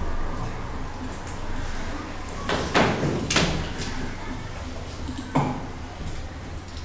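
Room background in a meeting hall with a few brief knocks, three close together around the middle and one more about five and a half seconds in.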